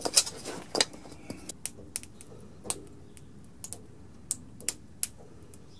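Sharp, irregular clicks and taps of a hard PLA 3D-printed part being set down and shifted into place on a concrete floor, about a dozen in all, the loudest near the start.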